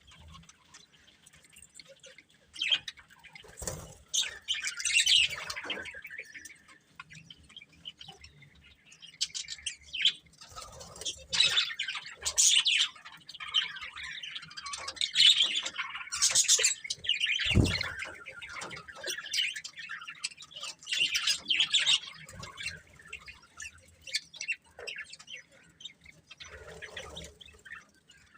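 Budgerigars chirping and chattering in repeated high bursts, with a short thump about two-thirds of the way through.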